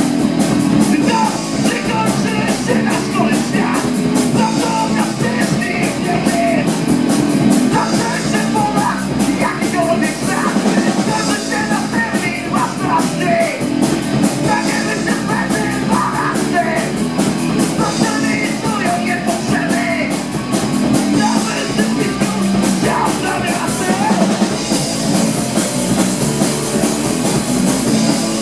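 Live punk rock band playing: electric guitars, bass and drum kit, with a vocalist singing into a microphone. The cymbals grow brighter near the end.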